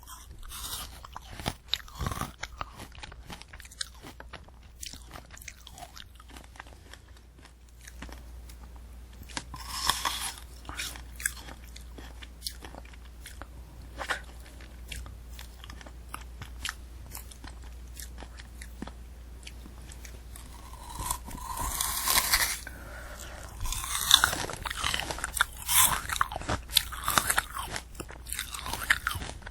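Candy apple being bitten and chewed close to the microphone: the hard sugar shell cracks and the apple flesh crunches wetly. There is scattered quieter chewing at first, then louder, denser crunching from a few seconds before the end.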